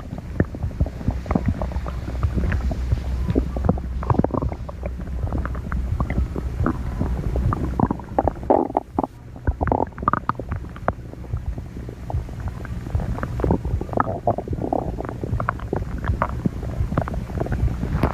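Human stomach growling and gurgling: a continuous low rumble with many quick pops and bubbling gurgles, thickest about halfway through and again a few seconds later.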